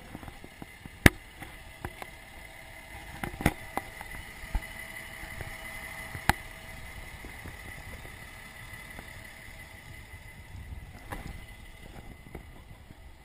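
A vehicle engine running steadily in the background, with a faint high whine, broken by three sharp knocks.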